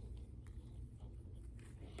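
Faint eating sounds close to the microphone: a few soft mouth clicks over a low steady hum, with a soft rustling starting near the end.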